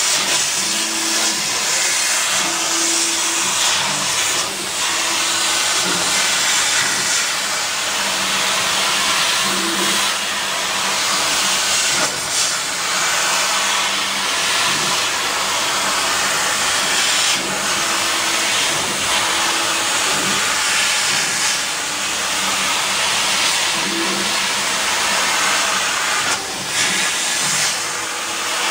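CO2 laser cutter cutting fabric: a steady rushing hiss of air, with short humming tones that come and go as the cutting head's motors drive it along the cut lines.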